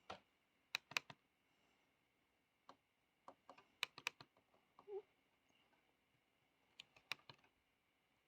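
Faint, irregular clicks in small clusters, over a faint steady high hum, with one short low pitched sound about five seconds in.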